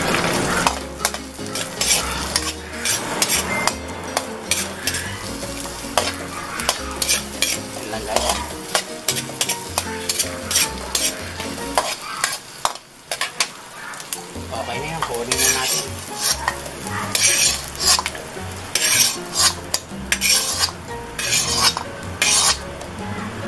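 Metal spatula scraping and tapping against an aluminium wok, stir-frying sliced carrots, red bell pepper and onion in a little hot oil, with a light sizzle under the strokes. The stirring eases for a couple of seconds about halfway, then picks up again with quicker scrapes.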